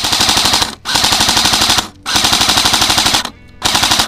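AK-pattern airsoft replica rifle firing full-auto in four long bursts of rapid, evenly spaced shots, the last burst starting near the end.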